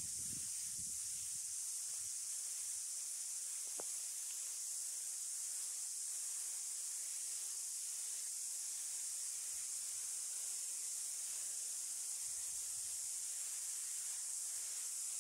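Cicadas chorusing: a steady, unbroken high-pitched hiss.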